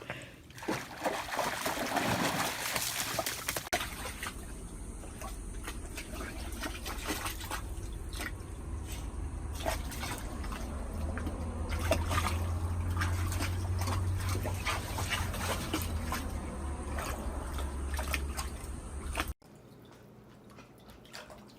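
A dog splashing and moving about in a water-filled foldable PVC pet pool: water sloshing and dripping with many short splashes, over a low steady rumble. The sound drops abruptly near the end.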